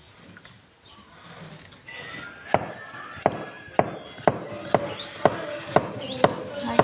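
A cleaver chopping a peeled green gourd into slices on a round wooden chopping block: sharp knocks of the blade on the wood about twice a second, starting a couple of seconds in.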